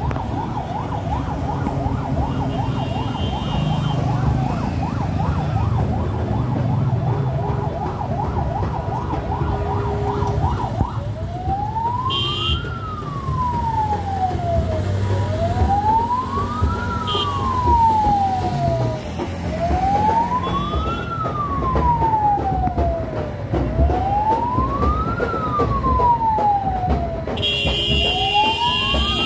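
Siren sounding: a fast warbling yelp for about the first ten seconds, then a slow rise-and-fall wail, about one cycle every four seconds, over low traffic noise.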